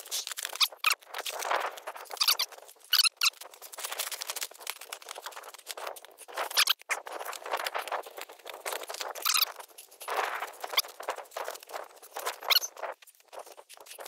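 A tarp flapping and rustling in gusty wind as it is pulled out over a ridgeline, in irregular bursts with high squeaky crackles.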